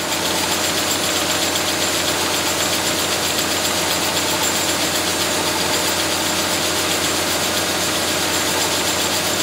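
1983 New Holland combine harvester's Fiat engine running at a steady speed while the unloading auger runs, a constant even hum with several steady tones.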